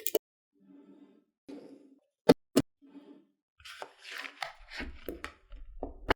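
Small magnetic balls being handled: two sharp clicks a third of a second apart as balls snap together, then a stretch of softer shuffling and rattling, and another sharp click near the end.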